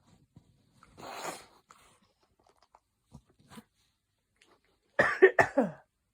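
A person sneezing with hay fever: a breathy burst about a second in, then a loud cluster of short voiced bursts near the end.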